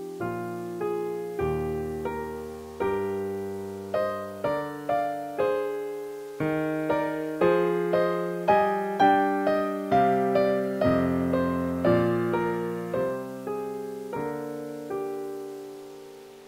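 Solo piano music: chords and single notes struck one after another, each left to ring out, fading near the end.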